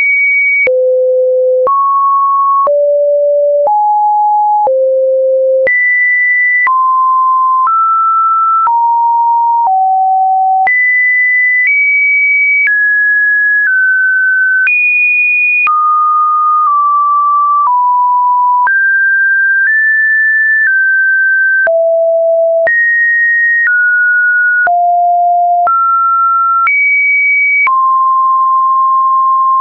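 Computer-generated sine-wave test tones. One pure steady beep follows another with no gap, each held about a second and each jumping at random to a new pitch, some high and some low.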